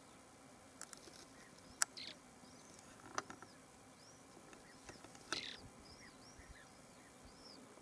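Small songbirds calling: thin, short arched chirps scattered through, with two louder brief buzzy calls about two and five and a half seconds in, and a few sharp clicks.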